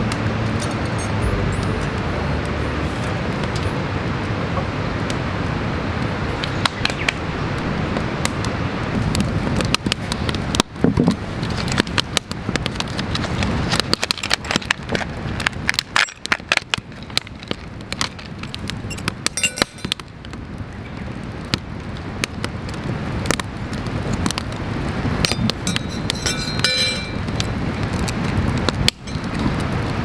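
Wood campfire crackling, with rustling plastic packaging and light metal clicks and clinks as small utensils are handled over a cast-iron pot. The clicks come mostly in the later two-thirds.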